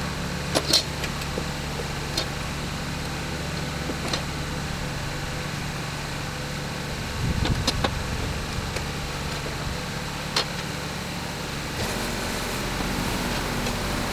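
An engine running steadily at a constant speed, with a few sharp clicks scattered through and a brief louder rumble about seven seconds in.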